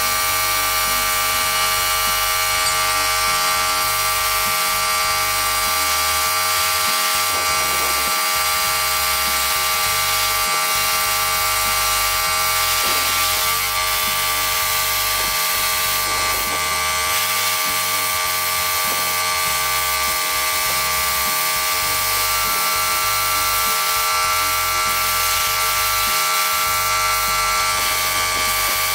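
Steady buzzing hum of an air compressor supplying a gravity-feed paint spray gun, with a high hiss of air over it.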